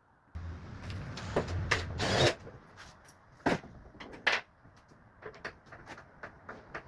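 Tool and metal handling noise while the motor is being taken off a washing machine drum: a dense rattling stretch with a low hum for about two seconds that stops abruptly, then two sharp knocks and many light clicks.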